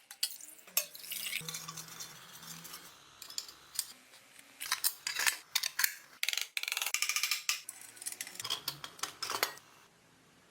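Small metal parts and tools clinking and scraping as they are handled, a run of irregular clicks and short rasping strokes, busiest from about the middle to near the end.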